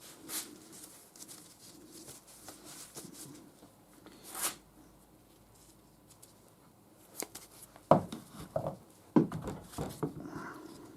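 Faint workshop handling sounds: a few light clicks and scrapes of metal parts being worked by hand on a lathe tool slide, with a brief hiss about halfway through and a cluster of sharper clicks near the end.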